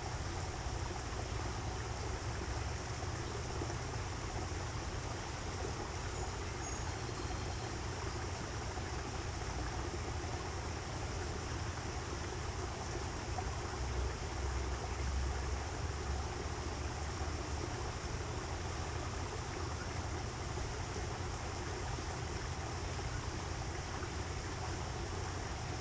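Steady rush of running water from a small stream over a continuous low rumble, which swells slightly about halfway through. A couple of faint, brief high bird chirps come about six to seven seconds in.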